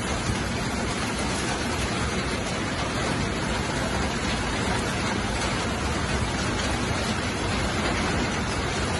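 Eggs and sliced smoked sausage sizzling steadily in a hot frying pan as they are stirred with a spatula.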